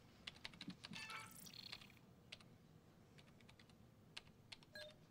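Faint, irregular clicking of computer keys being typed, busiest in the first two seconds, with a short faint tone near the end.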